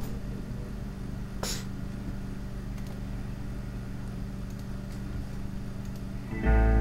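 A steady low hum with a single click about a second and a half in. Near the end, a rap instrumental beat with heavy bass starts playing.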